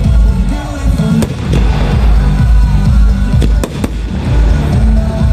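Aerial firework shells bursting with sharp bangs, three in quick succession about three and a half seconds in. Music from the display's loudspeakers plays under them.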